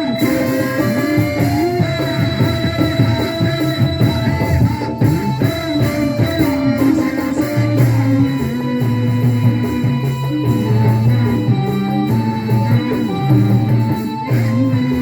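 Live Javanese band music: kendang drum patterns under a melody of held notes that move in steps.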